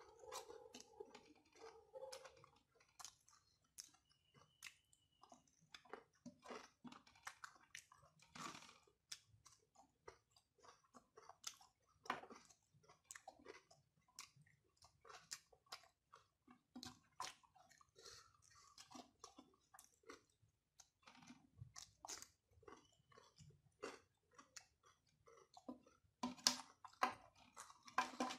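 Quiet, close-up mouth sounds of a person eating rice by hand: a string of soft, irregular chewing clicks and lip smacks, a little louder near the end.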